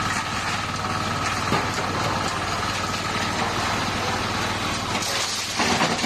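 Engine idling steadily with a rapid, even firing beat, the kind of machine that runs at a concrete foundation pour. About five seconds in there is a short, louder rush of noise.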